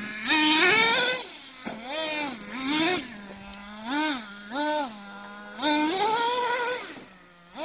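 Small nitro-fuelled glow engine of a radio-controlled car idling and being revved about six times in quick blips, with a longer rev near the end before it drops back to a quieter idle.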